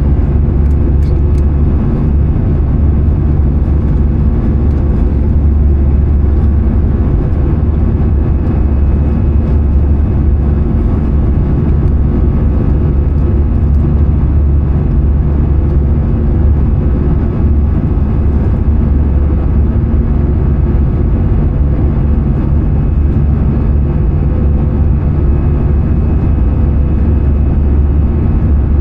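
Steady cabin noise inside an Airbus A320-214: the continuous low rumble of its CFM56 engines and the airflow, with a faint steady hum and no change in level.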